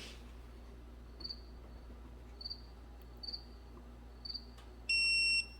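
A cricket chirping, short high chirps about once a second. Near the end, a loud electronic beep lasting about half a second.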